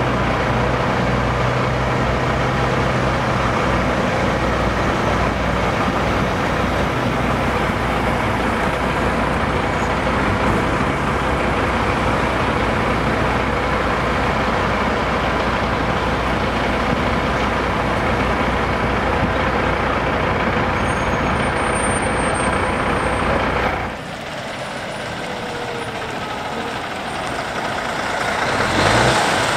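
Heavy prime movers pulling B-double race-transporter trailers drive past, a steady, loud mix of diesel engine and tyre noise. About 24 seconds in it drops away abruptly to a quieter road scene, and near the end a truck's engine grows louder as it approaches.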